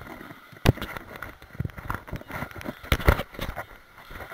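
Knocks and rubbing from a handheld waterproof camera being handled, with water splashing in a swimming pool. There are sharp knocks about a second in and again about three seconds in.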